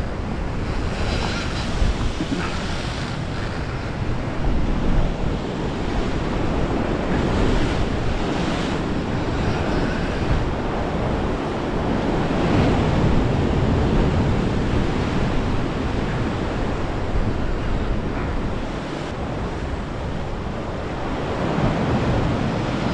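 Ocean surf washing and breaking against coastal rocks, swelling and easing every few seconds, with wind buffeting the microphone.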